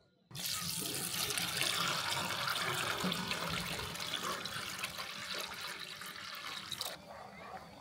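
Stream of water poured onto chickpeas in a metal bowl, a steady splashing and bubbling that stops about seven seconds in.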